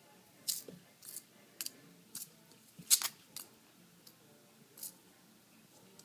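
A Christmas ornament being played with by a small puppy, giving a string of sharp, irregular clicks and rattles, the loudest about three seconds in.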